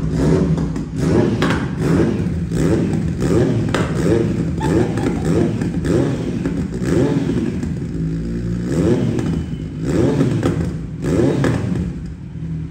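Kawasaki Z900 inline-four engine, decatted and breathing through an SC Project slip-on exhaust, revved in repeated short throttle blips. It settles briefly to idle about eight seconds in, then is blipped again.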